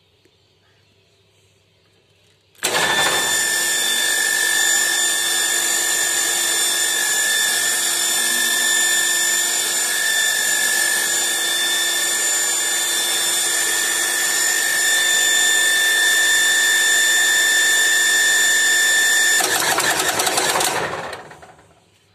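Electric pump motor switched on through its starter panel, starting abruptly and running loudly with a steady high whine. Near the end it turns to a fast rattle and winds down to a stop.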